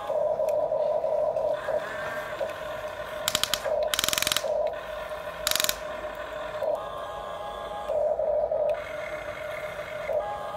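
Huina radio-controlled toy excavator's electric motors and gearboxes whining in spells as the boom, arm and bucket move, with a few short rattling bursts a few seconds in as the bucket scoops gravel.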